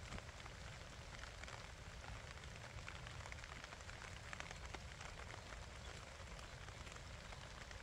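Light rain falling, a steady hiss with many small scattered drop ticks over a low rumble.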